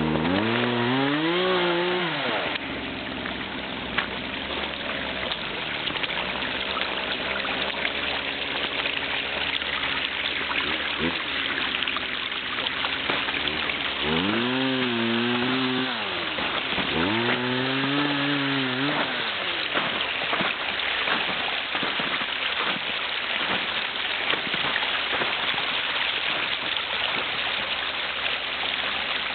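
Rain- and snowmelt-fed creek rushing steadily. Over it, a motor rises in pitch, holds and falls again three times: once at the start and twice close together around the middle.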